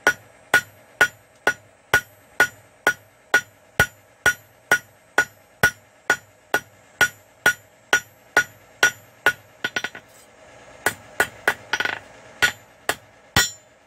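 Hand hammer striking hot quarter-inch bar stock on an anvil to draw out a long taper. Steady blows about two a second, each with a short bright ring. After about nine seconds come a few quick light taps, a pause of about a second, and then a handful of spaced blows near the end.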